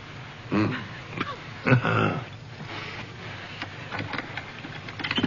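Two short wordless vocal sounds from a person, about half a second and two seconds in, over a steady low hum; a few sharp clicks near the end.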